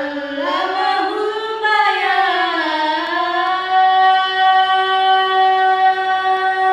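Melodic Qur'an recitation in a young female voice. It rises and falls over the first few seconds, then holds one long note until near the end.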